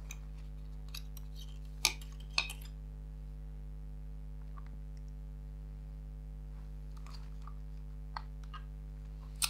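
Plastic and metal parts of a partly dismantled Canon Legria HF R806 camcorder handled and pulled apart: a few sharp clicks and taps, the two loudest about two seconds in, over a steady low hum.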